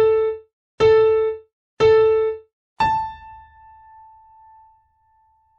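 A four-note chime melody played on an electronic keyboard. Three short notes on the same pitch, about a second apart, are followed by a fourth note an octave higher that is held and fades away.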